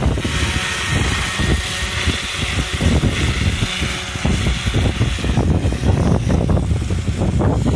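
Yanmar radio-controlled crop helicopter's engine and rotor running as it flies away across the field, with a steady high hiss that fades about five seconds in. Gusty wind buffeting on the microphone rumbles throughout.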